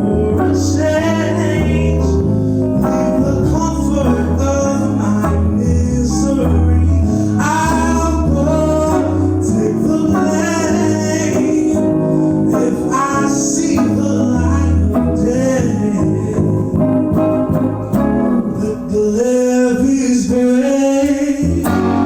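Live pop-soul song: a singer's voice holding and bending long notes over guitar accompaniment with a steady low bass line.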